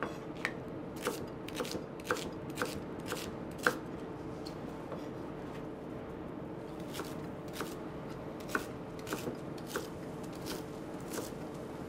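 Chef's knife chopping a leek on a plastic chopping board: a run of sharp knocks about twice a second, a pause of a few seconds in the middle, then more knocks. A steady hum runs underneath.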